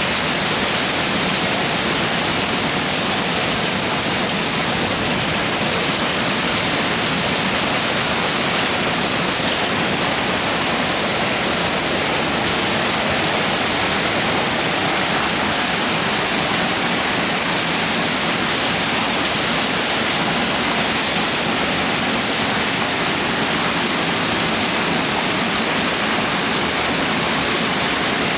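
Heavy rain falling, a steady, even hiss with no distinct drops or thunder.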